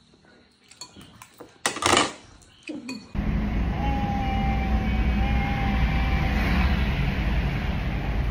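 A metal spoon clinks lightly against a ceramic bowl, with one louder clatter about two seconds in. From about three seconds in, the steady low rumble of a car's cabin takes over, with a thin held tone for a couple of seconds in the middle.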